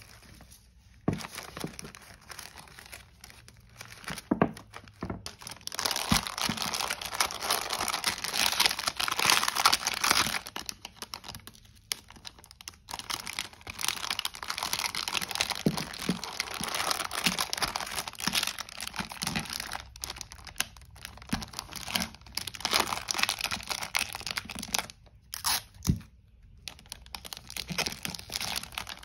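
Clear plastic packaging film crinkling and rustling as hands fold and wrap it, in stretches broken by a few short pauses, with occasional light taps.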